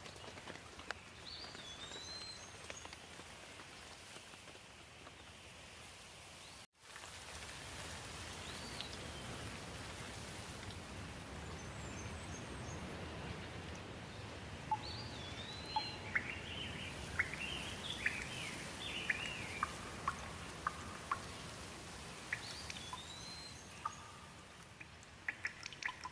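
Steady rain falling, with a bird repeating the same short rising-and-falling call several times and a burst of chirping midway. The sound cuts out for a moment about seven seconds in, and sharp ticks of dripping water come near the end.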